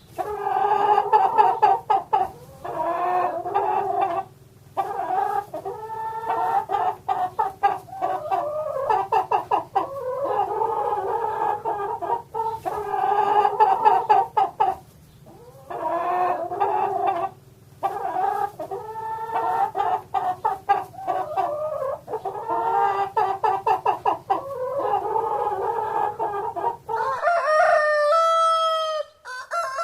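Chickens clucking in repeated runs of rapid, pitched clucks with short pauses between them, then near the end a longer, clearer call like a rooster crowing.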